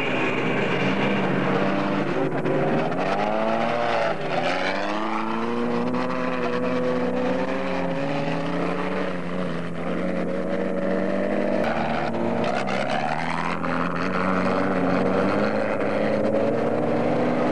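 Off-road race car engine running hard, its pitch falling and climbing again about four seconds in and once more near the middle as it shifts and re-accelerates, over the rumble of tyres on a dirt track.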